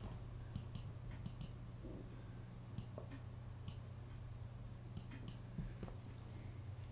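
Faint, irregular clicks from a computer mouse and keyboard being worked, over a steady low hum.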